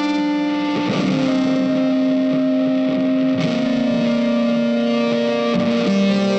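Guitar-led background music, chords held and changing about every two and a half seconds.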